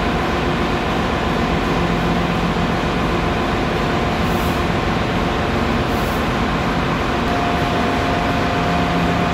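Steady, loud drone of running machinery, with a couple of constant hums over an even rumble that does not change.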